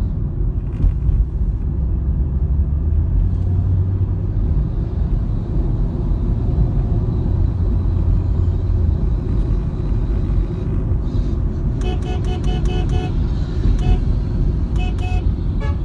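Steady low rumble of vehicle engines and road traffic. About twelve seconds in, a horn is tapped in quick short beeps, about six in a second, and again twice more before the end.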